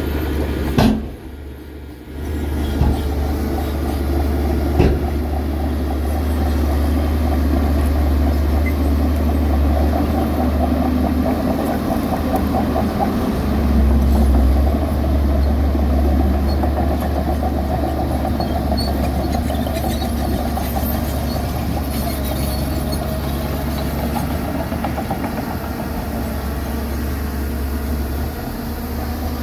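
Bulldozer's heavy diesel engine running steadily under work, with a deep constant hum, a brief drop-out about a second in and a couple of short knocks.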